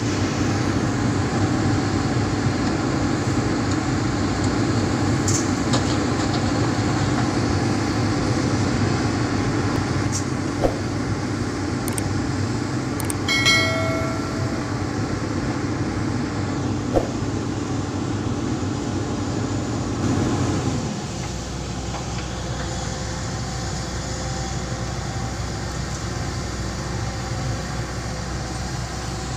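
Long-reach hydraulic excavator's diesel engine running under load as it digs and loads soil into a dump truck, a steady drone whose low note drops and settles lower about two-thirds of the way through.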